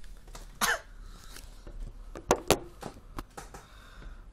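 Hands handling the recording device close to its microphone: scattered sharp clicks and knocks, the loudest a pair about a quarter second apart around two and a half seconds in, with a brief scraping rub about half a second in.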